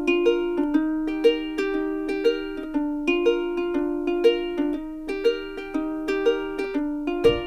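Background music: a light plucked-string tune, ukulele-like, with notes picked in a steady rhythm.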